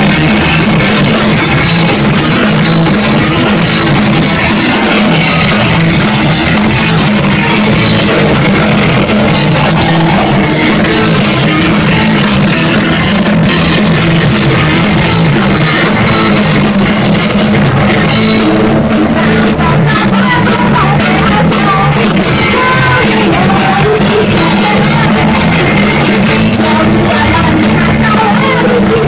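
Live rock band playing loud on electric guitar, bass and drum kit, a dense wall of sound with no break.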